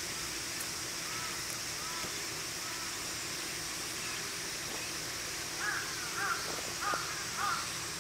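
A crow cawing: three faint caws in the first three seconds, then four louder caws in a quick run, a little over half a second apart, in the second half.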